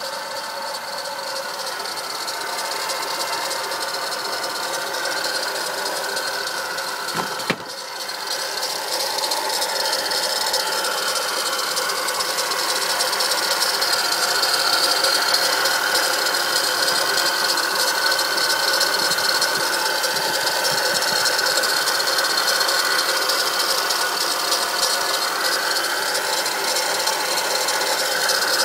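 Acura TL engine running steadily with a rattling noise, a weird sound that the owner suspects comes from a bad alternator. It grows a little louder over the first several seconds, with one sharp knock about seven seconds in.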